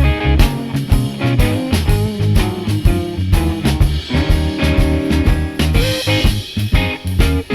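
Rock music with electric guitar, bass and a drum kit keeping a steady beat, played back through in-ear earphones.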